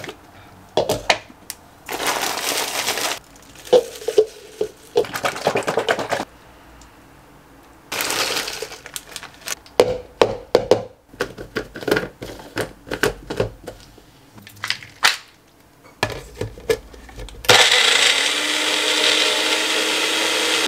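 Personal bullet-style blender being loaded, with knocks, clinks and brief pouring sounds as ingredients go into the plastic cup. Then, near the end, the motor runs steadily for about three seconds as the cup is pressed down on the base, blending frozen berries, spinach and almond milk.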